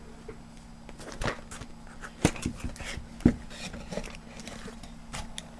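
A product box being opened by hand: scattered rustles and light clicks of the flaps and packaging, with two sharper knocks a little over two and three seconds in.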